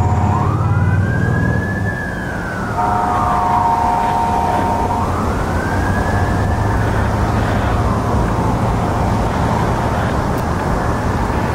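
Fire engine siren wailing in slow rising and falling sweeps, with a steady two-note tone sounding alongside it at times, over the rumble of road traffic.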